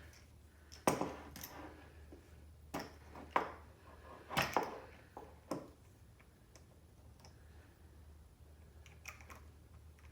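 Scattered light clicks and taps of small metal hardware being handled as skateboard truck mounting nuts are threaded onto their screws by hand, the loudest about a second in and around four and a half seconds, over a low steady hum.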